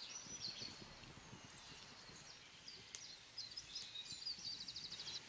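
Faint songbirds singing high chirps, ending in a fast trill in the last second, over soft footsteps swishing through grass early on.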